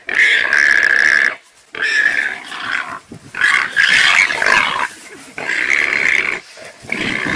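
Warthog squealing in distress in about five loud, high-pitched bursts, each up to about a second long, as a leopard grapples it, with some growling mixed in.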